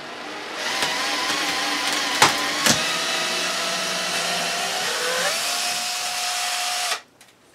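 Cordless drill backing a screw out of the floor, its motor whining steadily for about seven seconds with two sharp clicks a couple of seconds in and a slight change in pitch near the end, then stopping abruptly.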